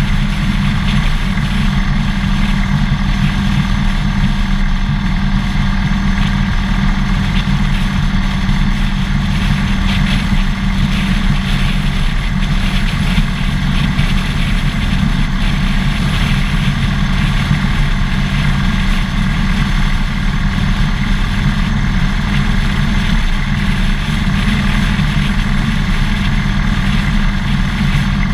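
Harley-Davidson Dyna Fat Bob's air-cooled V-twin engine running at steady low revs, its pitch hardly changing.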